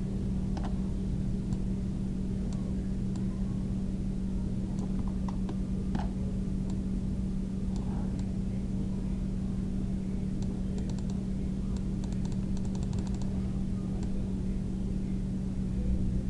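Computer mouse clicks and keyboard keystrokes, scattered, with a quick run of keystrokes about two-thirds of the way through, over a steady low electrical hum.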